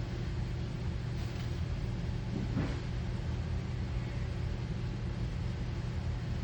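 Steady low mechanical hum, with a brief faint rustle about two and a half seconds in.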